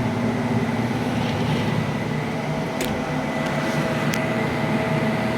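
Steady machine hum with a thin high whine, like a fan or air-conditioning unit running, with a couple of faint clicks about three and four seconds in.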